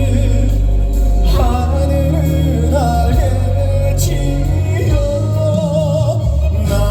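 Live music: a male voice singing a slow Korean trot ballad over an amplified backing band, with long held notes that waver in pitch.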